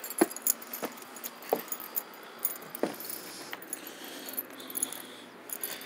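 Footsteps on brick steps and indoors, a handful of separate thuds, with light metallic clicking and jingling throughout.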